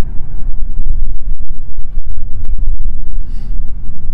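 Wind buffeting the microphone with a loud low rumble, over which come a few short sharp snaps of rubber bands being stretched and let go onto a watermelon.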